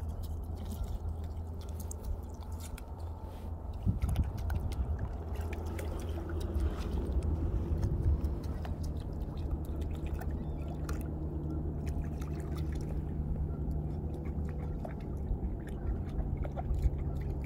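A cocker spaniel wading and walking at a river's gravel edge: shallow water splashing and dripping around its legs, with scattered small clicks and crunches of gravel and shells under its paws, over a steady low rumble.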